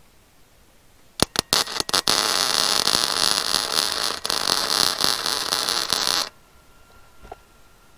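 Wire-feed welder arc on a steel car frame, tacking in a replacement section: a few short stuttering starts about a second in, then a steady crackling hiss for about four seconds that cuts off suddenly.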